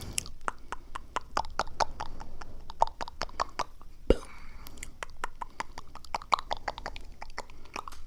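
Rapid, irregular close-up clicks, several a second, with a stronger knock about four seconds in.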